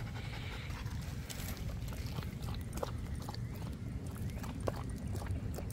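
Siberian husky lapping water from the plastic drinking tray of a portable dog water bottle, with scattered short wet clicks over a low rumble.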